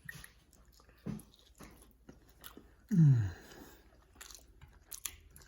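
Someone biting and chewing crunchy Flamin' Hot Cheeto-crusted chicken fingers, with small crunching clicks. A short vocal sound comes about a second in, and a louder vocal sound falling in pitch about three seconds in.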